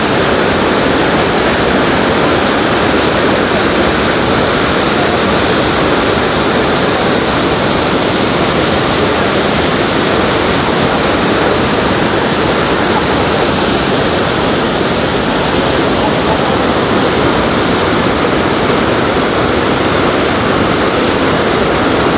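Loud, steady roar of the Rhine Falls, a large waterfall heard up close: massive volumes of water crashing down in a continuous rushing noise.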